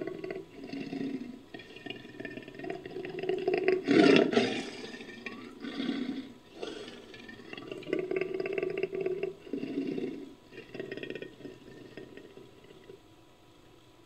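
Cave lion sound effect made from lion-like vocal recordings: a run of rough roars and growls, the loudest about four seconds in, fading away near the end.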